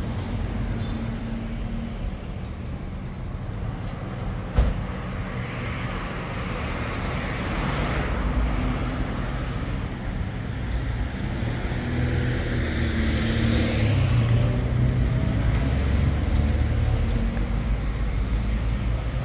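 Street traffic: cars passing one after another over a steady low rumble, with a single sharp knock about four and a half seconds in.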